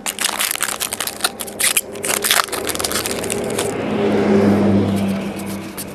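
Foil trading-card pack wrappers crinkling and crackling as packs are handled and opened, a dense run of crackles for about three and a half seconds. Then a louder steady low hum with rubbing noise for a second or two.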